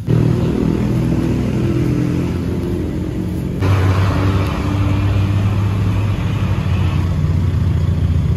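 A motor vehicle engine running close by, a steady low rumble that suddenly gets louder and hissier about three and a half seconds in.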